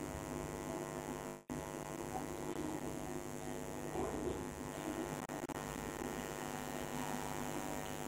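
Steady electrical mains hum with a buzz of many evenly spaced overtones. It drops out for an instant about one and a half seconds in.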